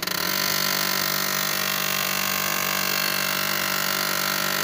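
Canon LBP6000/6030 laser printer running with its gear-train noise, the fault the printer is being repaired for. It makes a steady mechanical whir with several fixed tones, starting suddenly.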